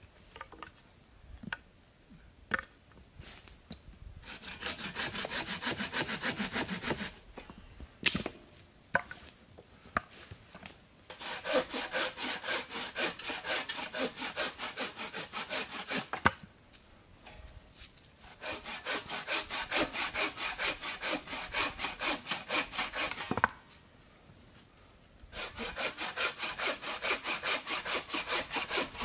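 Hand saw cutting wood in quick back-and-forth strokes, in four bouts with short pauses between them. A few sharp knocks fall in the pauses.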